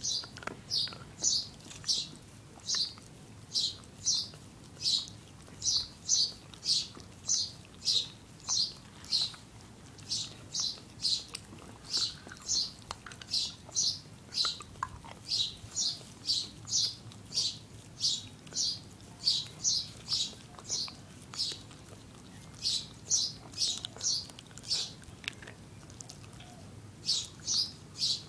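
Shetland sheepdog licking a hard lollipop: short wet licks about two a second, with two brief pauses near the end.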